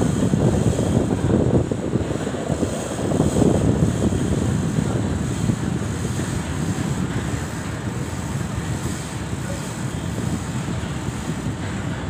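Wind buffeting the microphone: a low, gusty rumble, heaviest in the first four seconds and easing off after that.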